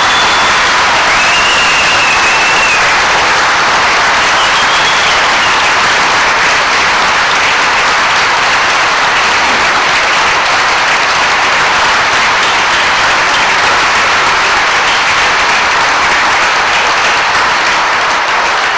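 Large audience in a hall applauding, a dense, steady clapping that holds at full strength throughout.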